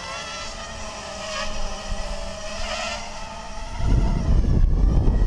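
Brushless motors and propellers of an Emax 250 Pro FPV quadcopter whining at several pitches that waver up and down with the throttle. About four seconds in, a loud, uneven low rumble like wind buffeting the microphone comes in and covers the whine.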